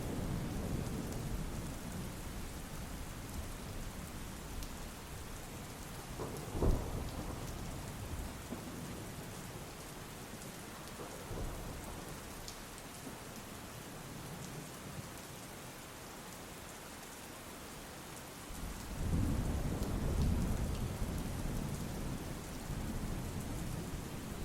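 Steady rain falling, with thunder: a single sharp crack about a quarter of the way in, and a long, low rolling rumble that swells up near the end.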